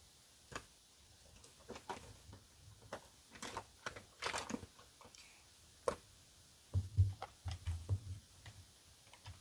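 Makeup items handled on a desk: scattered light clicks and taps, with a few soft low thumps about seven to eight seconds in.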